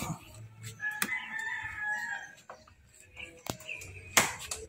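A rooster crowing once, a call starting about a second in and lasting over a second. A few sharp clicks and knocks come with it, the loudest near the end.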